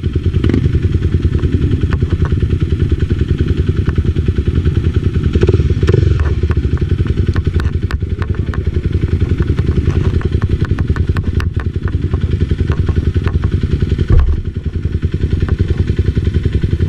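Enduro motorcycle engine running under way, with a steady loud rumble and many sharp clattering knocks. A heavier single thump comes about 14 seconds in.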